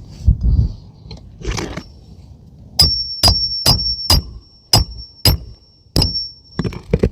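Hammer striking metal seven times at uneven intervals, each blow leaving a high ringing tone, as in nailing or driving a flat bar during an asphalt shingle repair. A scraping rustle comes a moment before the blows.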